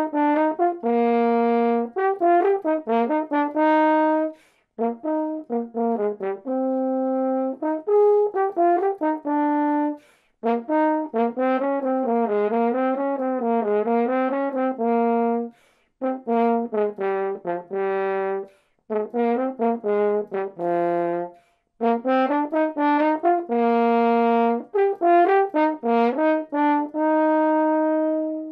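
Solo French horn playing the Horn 1 part of a gigue, a running melody of quick notes moving up and down in phrases, with short gaps for breath between them. It ends on a long held note that stops cleanly.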